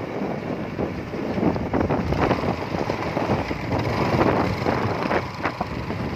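Traffic on an open road: a motor vehicle running, with wind buffeting the microphone in short gusts.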